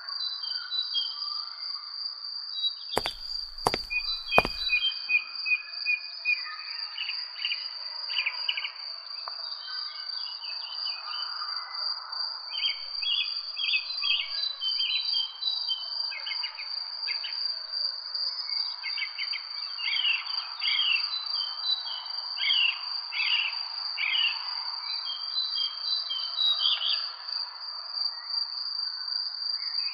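Small birds chirping and twittering in repeated short runs, over a steady high thin whine and a faint rushing background. Three sharp clicks come between about three and four and a half seconds in.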